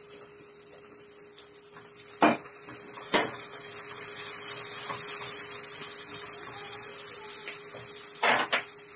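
Sliced sausage and chopped onion sizzling in oil in a pot, the sizzle swelling a couple of seconds in and then holding steady, while a spatula stirs and knocks against the pot a few times.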